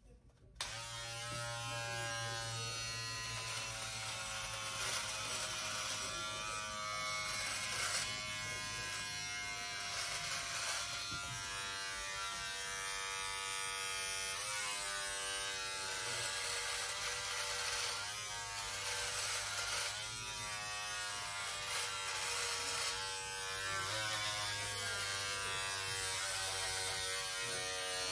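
Braun 6-in-1 electric shaver-trimmer switched on about half a second in and running steadily while trimming hair. Its buzz wavers and dips in pitch now and then.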